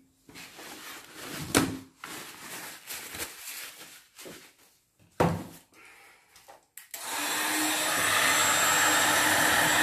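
A few light handling knocks, then about seven seconds in a handheld torch starts with a steady, loud hiss as it is played over wet acrylic pour paint.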